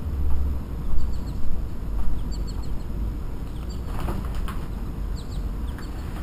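Flapping, like wings beating, in a few strokes about half a second apart in the first two seconds, over a low rumble, with faint bird chirps throughout.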